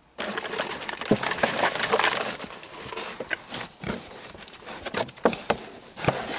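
Two pigs nosing and rooting through wood chips in a plastic feed tray, making irregular clicks and rustling.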